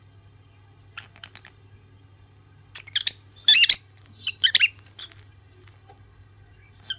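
Lovebirds calling: a few quick, thin chirps about a second in, then a run of loud, harsh, shrill squawks in the middle, tapering to shorter chirps.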